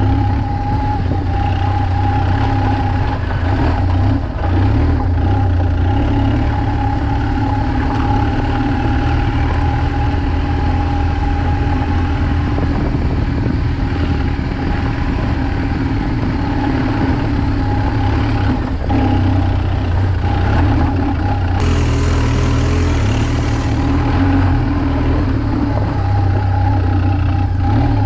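BMW R1200GS motorcycle's boxer-twin engine running steadily as the bike is ridden at low speed, with a brief hiss about two-thirds of the way in.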